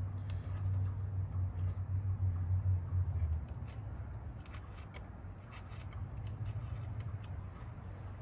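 Faint scattered metallic clicks and ticks of a steel Allen key working screws into an aluminium Picatinny rail, starting them by hand. Under them runs a steady low hum that drops in level about three and a half seconds in.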